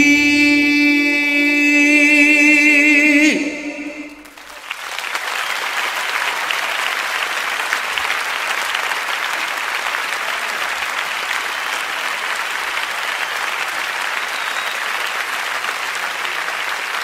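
A male singer holds a final sung note with wide vibrato for about three seconds; it ends in a falling slide. About a second later, a concert-hall audience breaks into steady applause.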